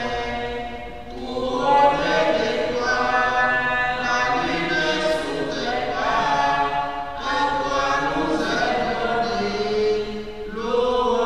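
A choir singing a slow chant, the voices holding long notes and moving to a new pitch every second or two.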